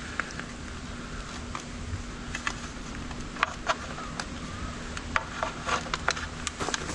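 Light, irregular clicks and rustling of wires and plastic parts as a hand works inside an e-bike's down-tube controller bay, the clicks coming more often near the end.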